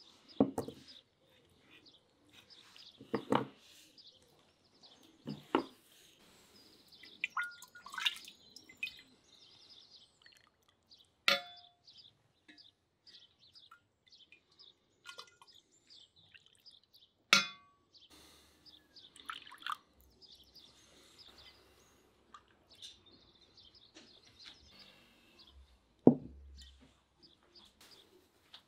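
Clay bowl and serving utensils knocking and clinking, about half a dozen sharp strikes spread over the time, one with a brief ring, with birds chirping in the background.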